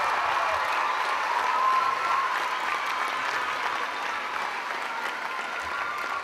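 Audience applauding, slowly growing a little quieter.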